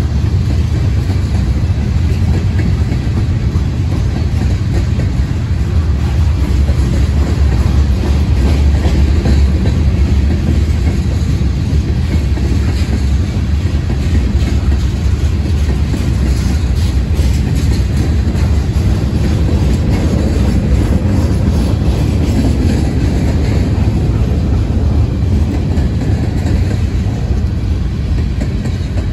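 Freight train's covered hoppers and tank cars rolling past close by: a steady, loud rumble of steel wheels on the rails, with a light clickety-clack of wheels over the rail joints now and then.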